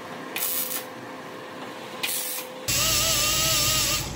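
Two short hissing bursts of tack welding, then about two-thirds of the way in a pneumatic die grinder with an abrasive disc starts grinding the steel weld: a loud, steady air hiss with a whine that wavers in pitch under load.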